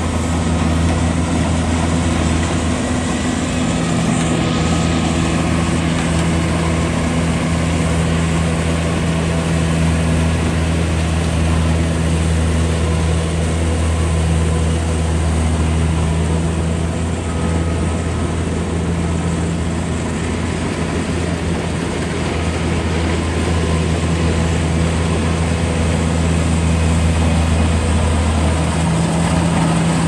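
Kubota combine harvester running steadily while cutting and threshing rice: a constant low diesel engine hum with the machinery noise over it.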